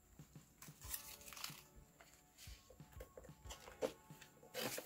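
Polymer banknotes rustling and crinkling faintly as they are handled and slid into a plastic cash envelope in a ring binder, with a few short clicks and the loudest rustle near the end. Soft background music underneath.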